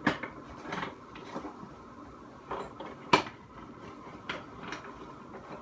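Small household objects being handled and set down on a hard surface: a scattering of light knocks and clatters, the sharpest about three seconds in.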